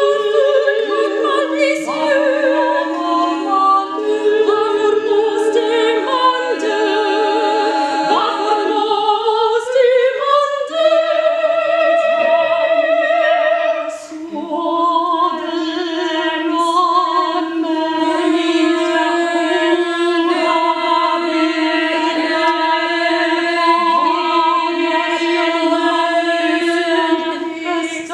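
Small vocal ensemble singing contemporary choral music: several voices hold sustained notes in close harmony, some with a wavering vibrato over a steady low note. About ten seconds in the voices glide upward into a new chord, which is held steadily.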